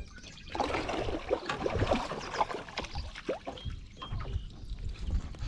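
Water splashing at the side of a boat as a hooked bass thrashes at the surface while being landed by hand, busiest in the first half.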